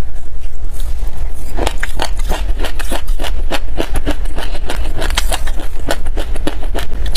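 A metal spoon scooping through a glass dish of dry black sesame seeds, close-miked: a dense run of quick, dry, irregular crackles that thickens after about a second and a half, over a steady low hum.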